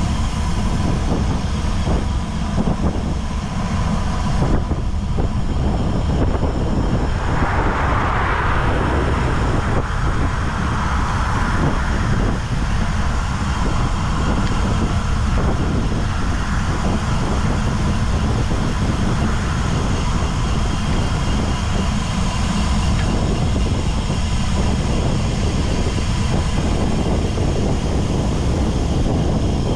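Wind buffeting the microphone of a camera riding on a moving road bicycle: a steady, loud rumble with a hiss over it. A brighter hiss swells for several seconds about a third of the way in.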